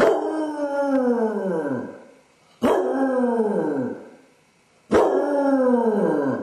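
Basset hound howling: three long howls in a row, each starting suddenly and sliding down in pitch as it dies away, the sign of separation anxiety in a dog left home alone.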